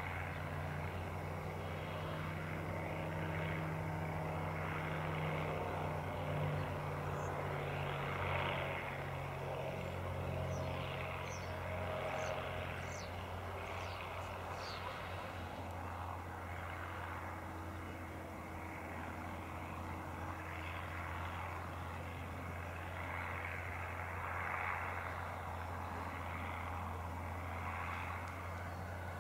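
Single-engine propeller ultralight airplane flying overhead, its engine and propeller a steady drone that swells and fades every few seconds.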